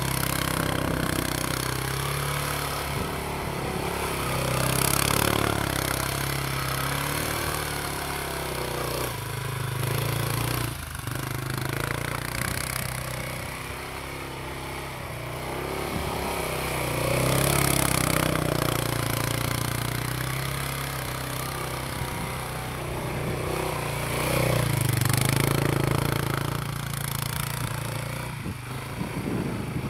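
Kymco MXU ATV engine running under load as the quad ploughs and slides through deep snow, its revs rising and falling, loudest a few times.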